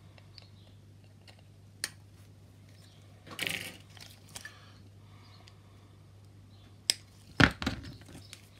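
Plastic model-kit sprue clicking and scraping as it is handled, then a few sharp snips of side cutters clipping a plastic part from its sprue, the loudest near the end.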